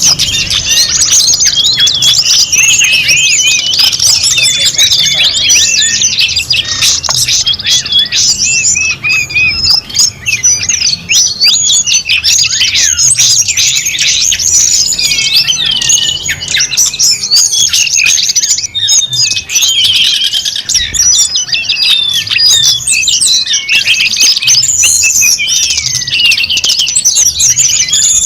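Dense chorus of many small birds chirping and twittering without pause, calls overlapping in quick high glides.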